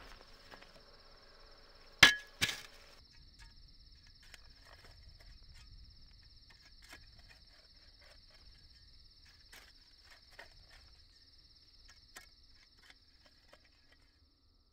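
Two sharp knocks in quick succession about two seconds in, then a steady high chirring of night insects with scattered faint clicks and scrapes.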